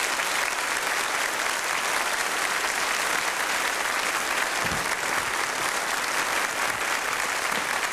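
Studio audience applauding, steady clapping from a large crowd.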